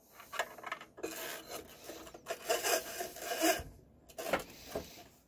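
A cable rubbing and scraping as it is pulled through a hole in the base of an Anet ET4X 3D printer, with a few handling clicks.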